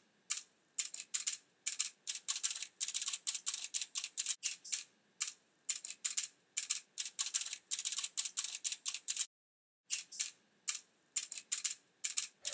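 Quick, irregular light tapping and clicking, typical of an ink pad patted repeatedly against a clear stamp mounted on an acrylic block to ink it, in clusters of several taps a second.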